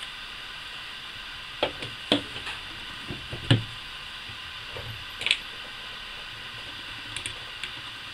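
A few sharp knocks and clicks as a Daisy Powerline 880 air rifle's plastic stock and receiver and a screwdriver are handled and set down on a table. The loudest knock comes about three and a half seconds in. A steady hiss runs underneath.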